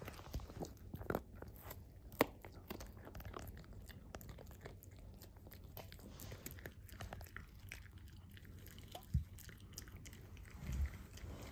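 Mame shiba gnawing a green asparagus-shaped dental chew, making irregular crunching bites and clicks that come thickest in the first few seconds and then thin out. A couple of short low thumps near the end.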